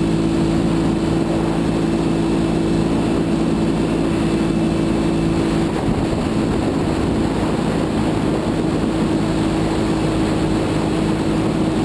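2012 Ural Gear-Up sidecar motorcycle's air-cooled boxer twin running steadily at cruising speed, a constant engine drone with wind rush over it. The engine note briefly breaks up about six seconds in, then settles again.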